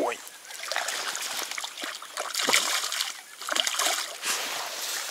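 A hooked crucian carp thrashing at the surface while being played, in a series of irregular splashes.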